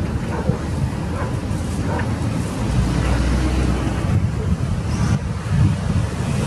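Wind buffeting the microphone: a gusty low rumble.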